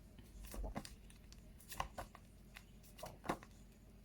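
Stack of paper flashcards being handled and flipped, giving a few faint taps and rustles.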